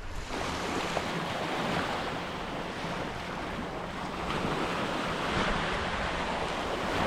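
Small surf breaking and washing up the beach, with wind rumbling on the microphone.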